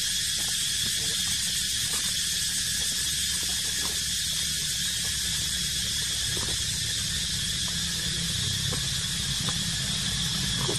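Steady chorus of forest insects, a continuous high buzz, over a low steady rumble, with a few faint ticks.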